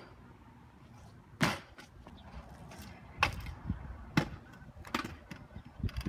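Stunt scooter clacking on concrete: a few sharp clacks of the deck and wheels striking the pavement, the first about a second and a half in, then roughly one a second.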